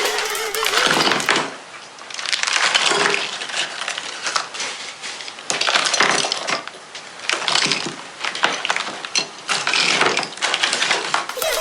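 Irregular crackling, crinkling and clicking of packaging and plastic toy parts being handled, in short uneven bursts.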